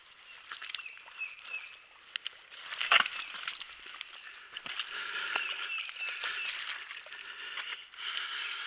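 Footsteps wading and sloshing through creek water and mud, with one louder splash about three seconds in, over a steady background chorus of calling animals.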